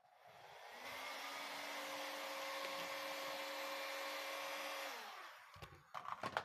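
Electric heat gun running: its fan spins up with a rising whine, blows steadily for about four seconds, then winds down with a falling pitch. A few short knocks and rustles near the end.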